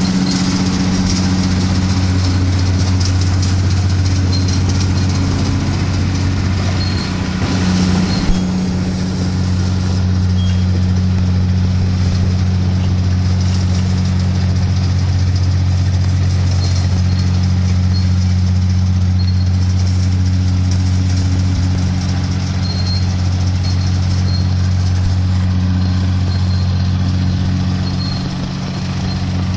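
Heavy diesel engine idling steadily, a low even hum, with one sharp knock about eight seconds in.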